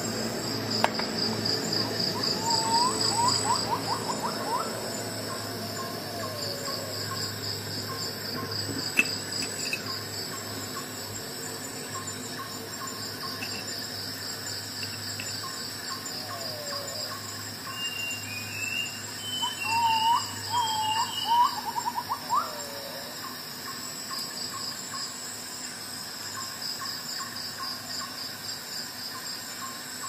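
Crickets chirping in a steady, pulsing high trill. Twice, at about two seconds and about twenty seconds, a lower call joins in as a quick run of short rising notes. There are two sharp clicks, about a second in and about nine seconds in.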